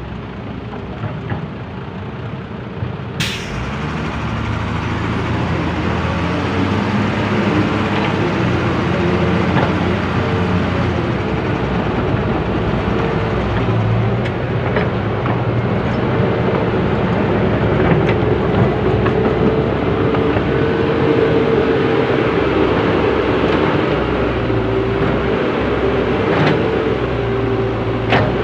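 Diesel engines of a dirt-laden dump truck and an excavator running hard under load while the stuck truck is worked free. The engine note rises about three seconds in and stays high, with a sharp knock just before that and a few metal clanks later on.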